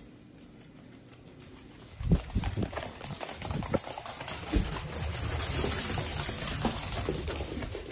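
A small dog doing zoomies on a hardwood floor: a quick, irregular patter of paw thumps and claw scrabbles that starts about two seconds in.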